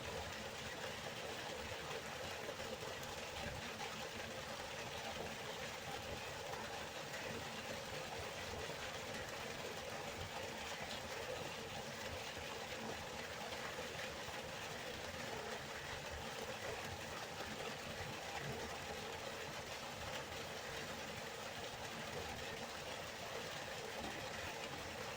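River water flowing with a steady, even rushing sound.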